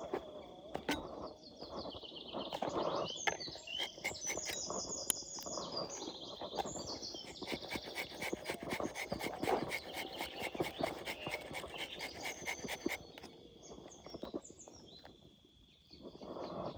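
Tropical forest ambience: birds calling in quick repeated chirps over a steady high insect drone, with scattered light clicks and crackles. It drops almost to silence shortly before the end.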